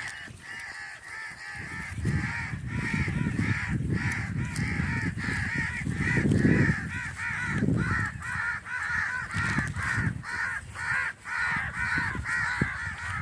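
A flock of crows cawing continuously, with many harsh calls overlapping, several a second.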